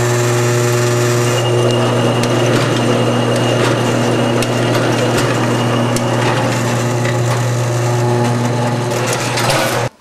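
Antique electric washing machine running: a steady motor hum under continuous mechanical clatter and ticking from the cone-and-clutch drive beneath the tub. The sound cuts off suddenly near the end.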